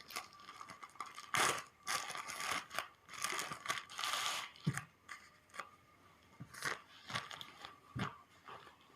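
Parcel packaging being torn open and handled, with irregular crinkling rustles and a few sharp clicks, busiest in the first half.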